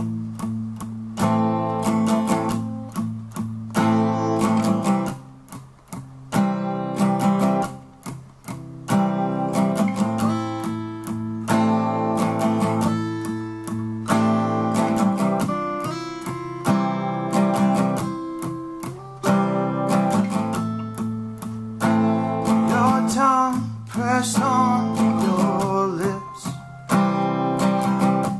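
Two acoustic guitars playing together, with chords strummed in a steady rhythm and higher single notes picked over them.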